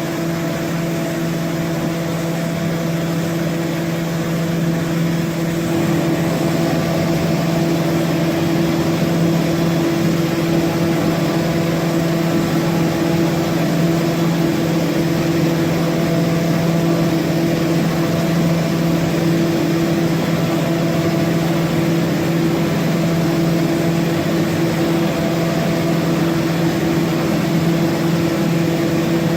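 HOMAG BOF 41/K CNC machining center running, a steady mechanical hum with several steady tones that grows a little louder about six seconds in.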